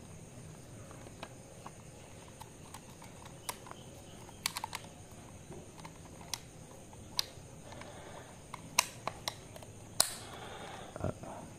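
Sharp, irregular plastic clicks and taps from an action camera being fitted into and handled in its clear plastic housing and mount. A quick run of clicks comes about four and a half seconds in, and the loudest clicks come in the second half.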